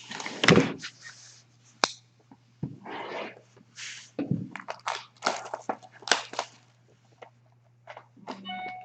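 Wrapped trading-card box being torn open and handled: irregular crinkling and crackling of the wrapper and cardboard, with a sharp click about two seconds in. A steady low hum runs underneath.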